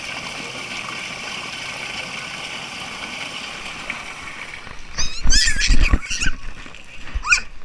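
Splash-park water spray hissing steadily, then a toddler's high-pitched squeals about five seconds in and again near the end, with bumps on the camera.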